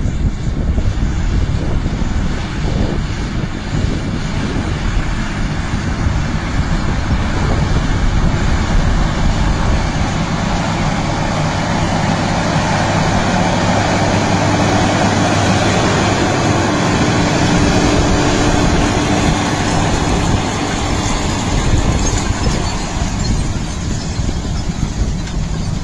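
Case MX 270 Magnum tractor's 8.3-litre Cummins six-cylinder diesel running steadily while pulling a wide seed drill. The engine note grows louder and clearer from about ten seconds in as the tractor passes close, then eases after about twenty-one seconds as it moves away.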